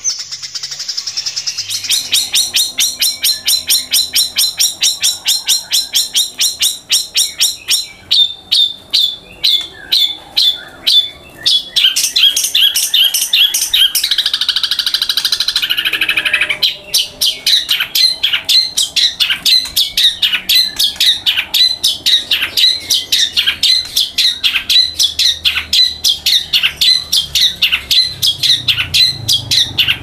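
Caged songbird chirping rapidly and repeatedly, several high chirps a second, with a denser trilling stretch about twelve seconds in.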